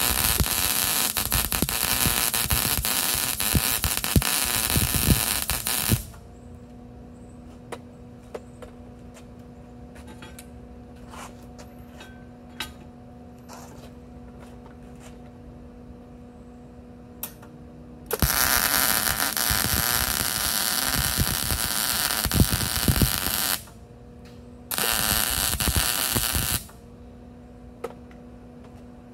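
MIG welding arc crackling and hissing as stainless steel is welded to carbon steel, in three runs: about six seconds, then after a long pause about five seconds, then about two seconds. A steady hum and a few faint clicks fill the pauses.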